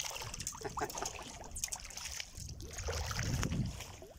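A hooked singara catfish (giant river catfish) thrashing in shallow water as it is drawn in on the line, with irregular splashes and sloshing water.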